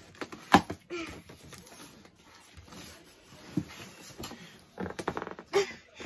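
Hands working a large cardboard shipping box: a sharp knock on the cardboard about half a second in, then scraping, rustling and tapping as the flaps are pried at and torn, with a flurry of short knocks and rustles near the end.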